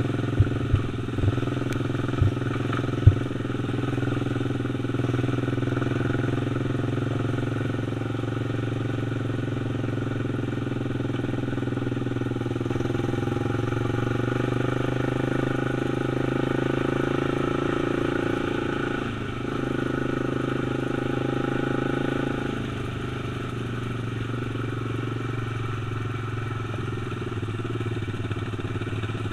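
Quad (ATV) engine running steadily as it rides along a gravel lane, with a few sharp knocks in the first three seconds. The engine briefly dips about two-thirds of the way through, then its note drops a little and stays lower.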